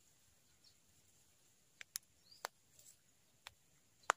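Quiet pondside ambience: a faint steady high hiss with a couple of short, faint bird chirps, and from about halfway a handful of sharp clicks, the loudest near the end.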